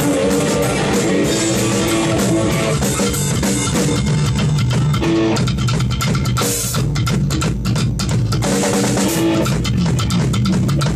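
Psychobilly band playing loud and steady: drum kit, electric guitar and upright double bass together, with rapid sharp drum and string hits throughout.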